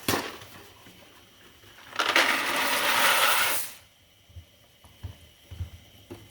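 Dry gluten-free twirly pasta poured from its box into a pot of boiling water: a loud rush of rattling pasta lasting under two seconds, a couple of seconds in, after a sharp click at the start and followed by a few light knocks.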